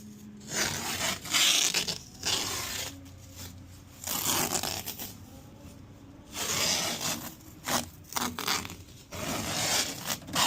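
Adhesive tape being pulled off the roll and pressed down in several separate rasping rips, each about a second long.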